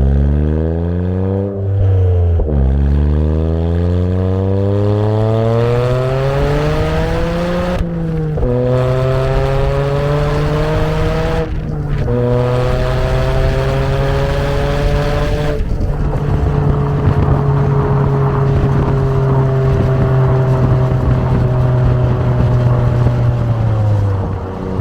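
Toyota GR Yaris's turbocharged 1.6-litre three-cylinder engine through a full Akrapovic titanium exhaust with the particulate filter removed, accelerating hard up through the gears. The note climbs and breaks briefly at each of several upshifts. From about two-thirds of the way in it holds a nearly steady pitch, then drops away near the end as the car lifts off.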